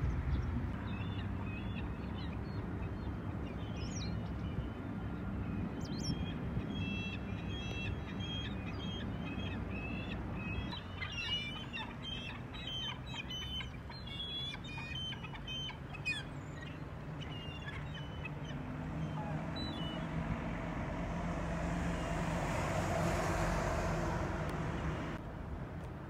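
Gulls calling: many short, high repeated calls, busiest in the middle, over a steady low rumble. Near the end a rush of noise swells and fades.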